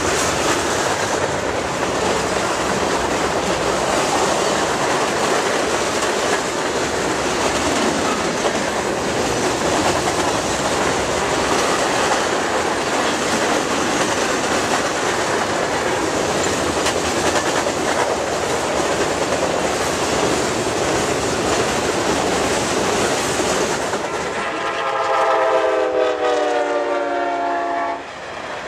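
Freight cars (tank cars, flatcars and covered hoppers) rolling past close by, a steady noise of steel wheels on rail. Near the end a train horn sounds several notes at once for about four seconds, sliding down in pitch.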